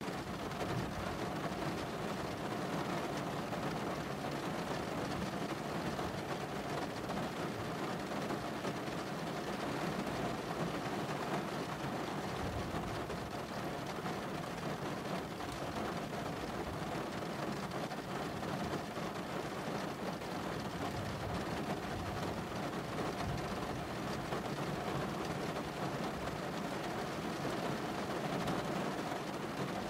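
Steady rain falling on a car, heard from inside the cabin: an even, unbroken wash of rain on the roof and glass, muffled by the car body.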